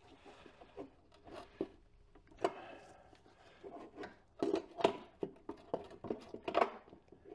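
Irregular clicks, knocks and scrapes of a power window regulator assembly and its panel being handled and shifted on a workbench while its bolts are lined up. The regulator's drive sprocket is catching on the bench.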